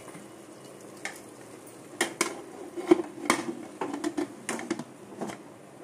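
Metal clinks and clacks of a pressure cooker's lid being fitted and closed onto the cooker: a series of sharp knocks over a low, steady background sound.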